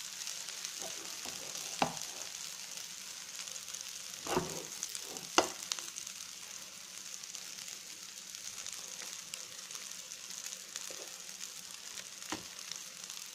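Bathua kebabs sizzling steadily in shallow oil in a non-stick frying pan. A few short knocks of a steel spatula against the pan, the sharpest about five seconds in.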